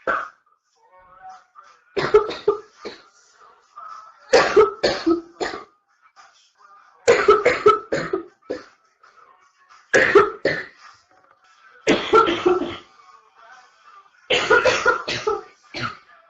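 A young woman coughing in repeated fits, each a burst of three or four coughs, coming about every two to three seconds: the coughing of an early chest cold.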